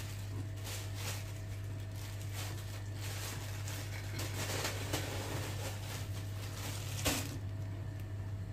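Kitchen items being handled: rustling and light knocks for about seven seconds, densest midway, ending in a sharp click, over a steady low hum.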